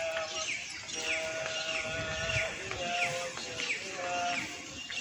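Background violin music: a slow melody of long held notes that step up and down, with quick high falling chirps repeating two or three times a second.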